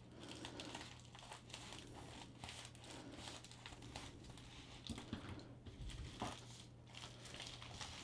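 Faint crinkling and rustling of a plastic bubble mailer as it is cut along its edge with scissors and handled.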